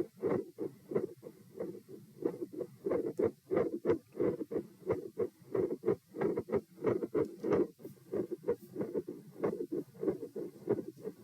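Human heartbeat heard through a stethoscope at the pulmonic area: a regular lub-dub of the first and second heart sounds, about three short thuds a second. The beats grow and fade in strength over a few seconds, which the title calls very phasic.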